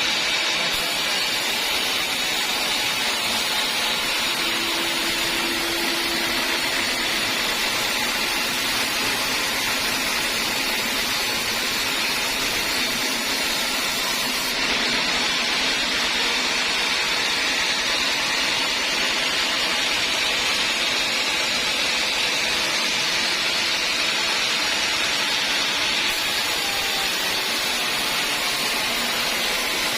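Sawmill saw running steadily with a continuous high hiss, no pauses or changes in pitch.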